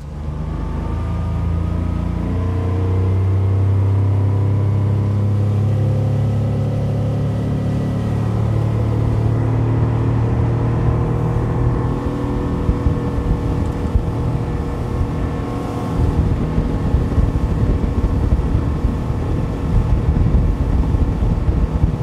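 Small fishing boat's motor speeding up and running at speed; its pitch climbs over the first few seconds, then holds steady. From about two-thirds of the way through, a louder, choppier rush of wind and water joins in.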